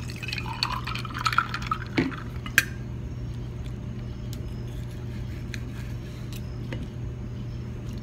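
A drink poured from a bottle into a glass mason jar for about the first two seconds, followed by a sharp clink and then light scattered clicks of a fork and knife on a ceramic plate, over a steady low hum.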